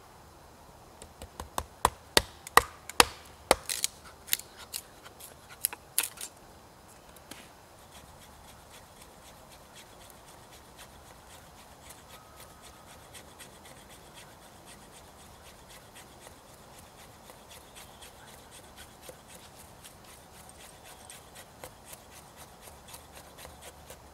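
Knife carving a split stick of dry wood into a feather stick: faint, even scraping strokes as thin curls are shaved off. For the first six seconds or so these come with a run of sharp wooden cracks and knocks, the loudest sounds here.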